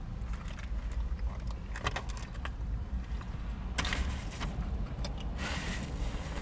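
Paper food wrapper and takeout bag rustling and crinkling as they are handled, in two short bursts about four and five and a half seconds in, with a few faint clicks before them. Under it a low steady hum fills the car cabin.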